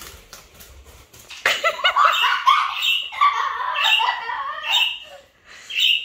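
Short, high squawks from a small green pet parakeet about once a second, over a burst of rapid, high-pitched vocal sounds. The burst starts about a second and a half in and lasts about four seconds.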